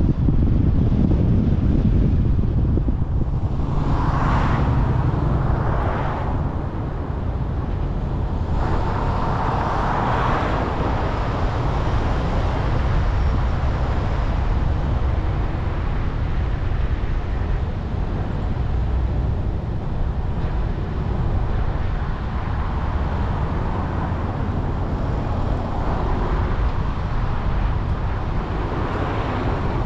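Car driving: a steady low rumble of engine and road noise, with a few louder swells about 4, 10 and 26 seconds in.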